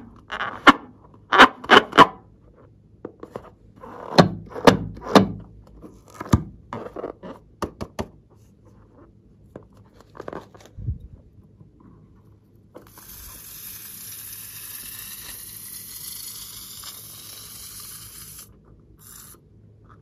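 Fingers rubbing and squeezing a taut inflated latex balloon, giving a quick run of rubbery squeaks over the first eight seconds and a few more around ten seconds. Then air hisses steadily out of the balloon for about five seconds with a faint rising whistle as it deflates.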